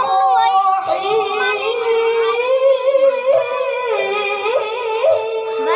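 A boy's voice reciting the Quran in the melodic tilawah style into a microphone, drawing out long ornamented notes that waver and slide in pitch, and ending on a long held note.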